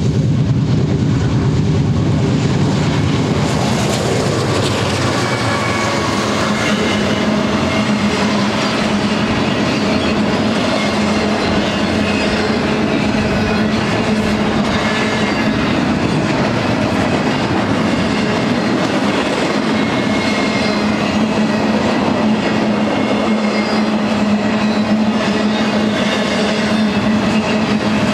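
BNSF freight train passing close: the diesel locomotives' engine rumble fades in the first few seconds, then double-stack container cars roll by with a steady rumble, clacking wheels and a thin ringing whine from the wheels on the rails.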